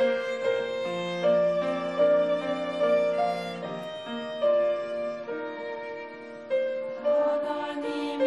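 Violin playing a hymn melody in long held notes over piano accompaniment, the instrumental introduction before a church choir comes in.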